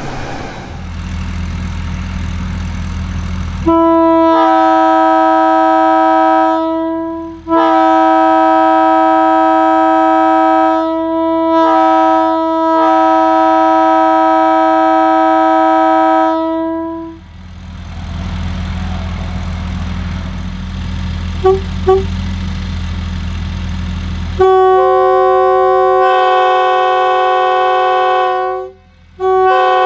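Leslie S2M locomotive air horn sounding in long steady blasts with a few short breaks. Then comes a low steady rumble with two tiny toots, and about 25 seconds in a Nathan K23A4 air horn starts a different chord.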